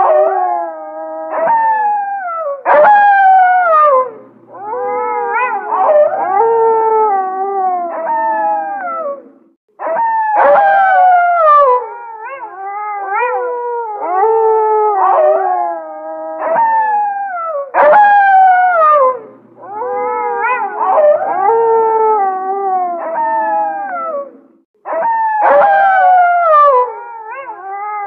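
A pack of grey wolves howling in chorus: several long howls at different pitches overlap, most sliding down, with a few steeper higher-pitched glides. The same stretch of chorus repeats about every seven and a half seconds.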